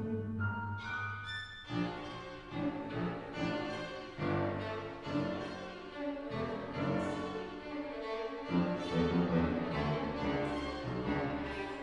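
Piano quintet (piano, two violins, viola and cello) playing classical chamber music, with the bowed strings to the fore. Held notes give way about two seconds in to a busy passage of many quick notes.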